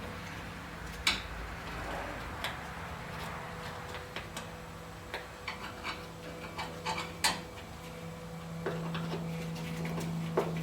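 Hand tools and metal engine parts clicking and tapping irregularly during a teardown, with a burst of quick clicks in the middle and a steady low hum underneath.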